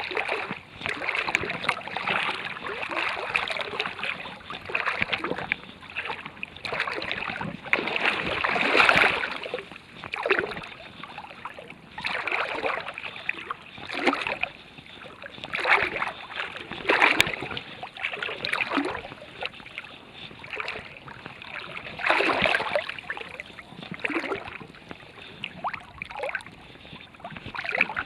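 River water sloshing and splashing in uneven surges every second or two.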